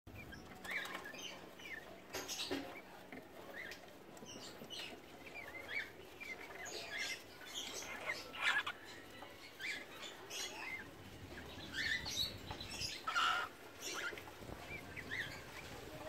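A pair of cockatiels mating: a run of short, soft squeaky chirps throughout, broken by a few brief wing flutters as the mounted bird keeps its balance.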